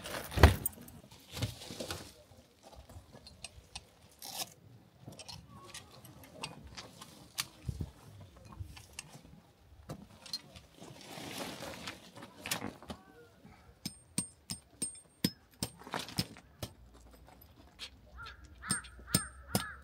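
Scattered knocks, clicks and rustles of camping gear being handled and set up, with sharp clinks coming more often in the last few seconds. Near the end a bird calls in a quick repeated series.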